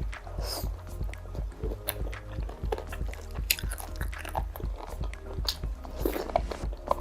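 Close-miked person chewing and biting on sinigang pork ribs, with many short irregular mouth clicks.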